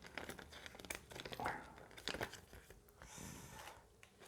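Faint crinkling and rustling of packaging and paper being handled while an unboxing goes on, with scattered small clicks and a longer rustle about three seconds in.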